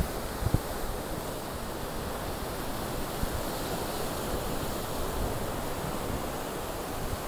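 Rough ocean surf breaking and washing over rocks: a steady rushing wash.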